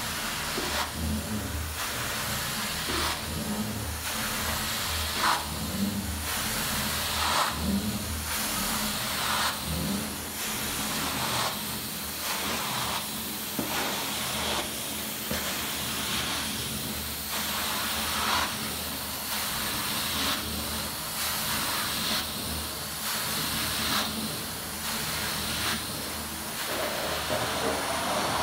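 Carpet cleaning extraction wand drawn over carpet in repeated strokes: a steady suction hiss that swells and fades about once a second with each pass, over the low drone of the extraction machine.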